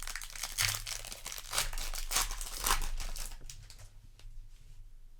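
Foil wrapper of a Magic: The Gathering play booster pack crinkling and tearing as it is opened, a run of crackles that dies down after about three and a half seconds.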